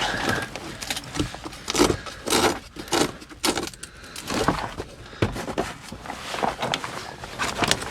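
Irregular clinks and knocks of hand tools against metal, coming in quick, uneven bunches.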